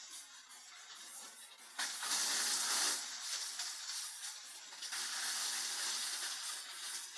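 Drum wood chipper shredding wood, a hissing rush of noise that surges twice, about two seconds in and again about five seconds in.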